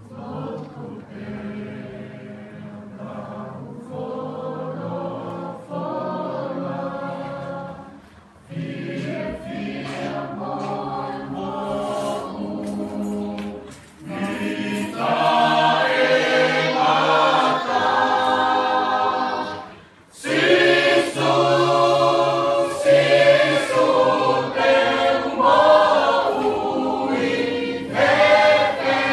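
A choir singing a hymn in sung phrases broken by brief pauses, growing louder from about halfway through.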